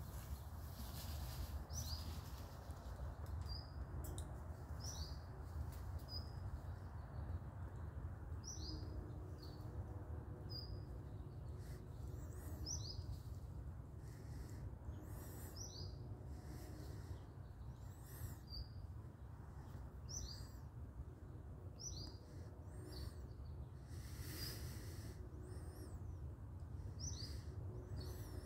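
A songbird calling repeatedly with short, high, down-slurred chirps, often in pairs, every second or two, over a steady low rumble.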